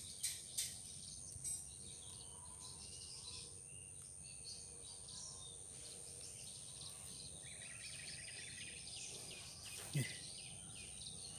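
Quiet outdoor ambience by the water: scattered bird chirps over a steady high-pitched whine and low hiss, with a short rapid rattling call about three quarters of the way through. A few faint clicks come in the first couple of seconds, and a sharper click about ten seconds in.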